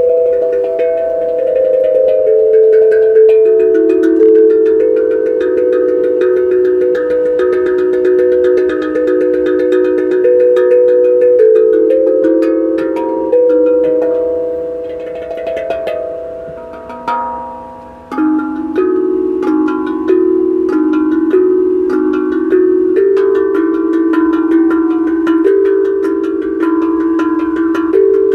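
A tuned percussion instrument struck by hand, playing a melody of ringing, bell-like notes that step up and down, each note sustaining into the next. About two-thirds of the way through, the notes die away, then the playing starts again.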